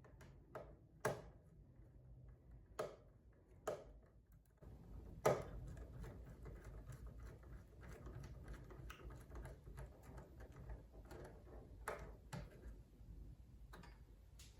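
Scattered clicks and taps of hands and tools working an electrical wire into a switch terminal, the loudest about five seconds in, followed by lighter irregular ticking.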